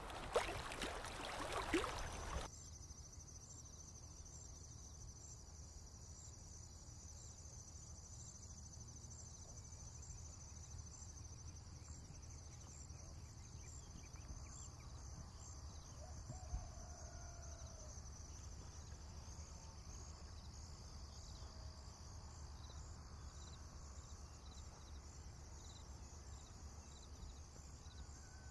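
Insects chirring in a steady, high, faintly pulsing drone over a low rumble, with a faint short bird call about sixteen seconds in. In the first two seconds or so, running stream water is heard; it cuts off abruptly.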